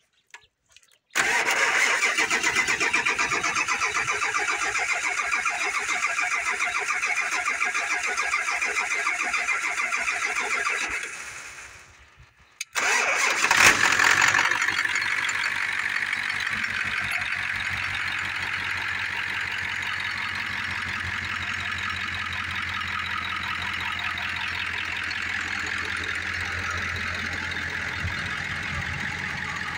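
Turbocharged truck engine's starter cranking it steadily for about ten seconds without a start, falling silent, then cranking again until the engine catches and settles into a steady idle. This is the engine's first start-up.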